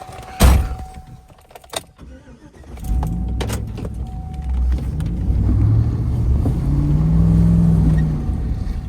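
A sharp thump about half a second in, then a vehicle pulls away from about three seconds in: the engine and road noise grow louder, and the engine pitch rises and falls as it accelerates.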